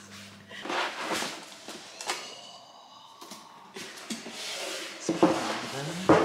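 Cardboard and foam laptop packaging being handled: rustles, scrapes and soft knocks as the box is opened and the laptop lifted out.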